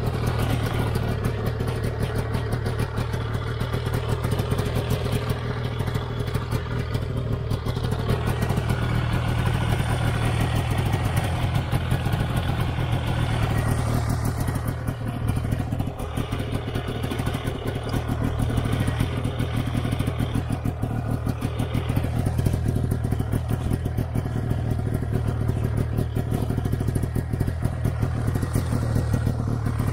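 Snowmobile engine idling steadily.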